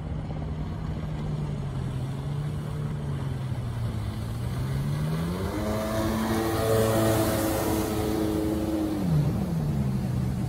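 1998 Sea-Doo GS 720 jet ski's two-stroke twin engine running on the water: the pitch rises sharply about five seconds in as the throttle opens, holds high for a few seconds with a hiss of water spray, then drops back near the end.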